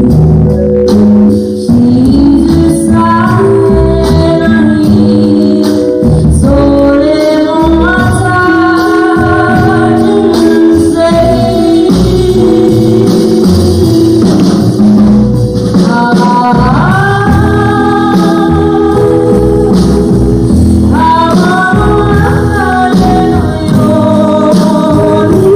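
A young girl singing a slow Japanese enka ballad live, holding long notes with vibrato, over a jazz band of double bass, drums and electric guitar.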